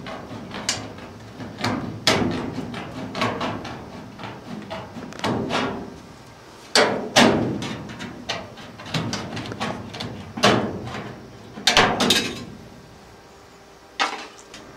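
Sheet-metal duct sections clanging and banging as a tight-fitting new return-air duct piece is forced into place, an irregular run of metallic knocks with ringing tails, the heaviest a few near the middle.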